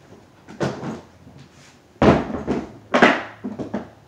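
Ridgid stacking plastic tool boxes being unlatched and pulled apart: plastic latches clacking and the hard plastic cases knocking and clunking, with two loud clunks about two and three seconds in.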